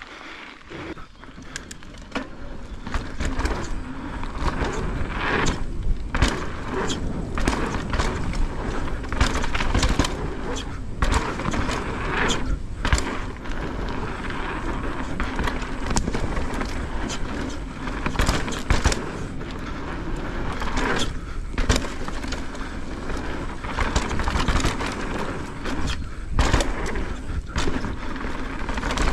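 Santa Cruz Megatower mountain bike riding a dirt trail: steady tyre and wind noise with frequent clicks, knocks and rattles from the bike over bumps, getting louder about two seconds in as it picks up speed.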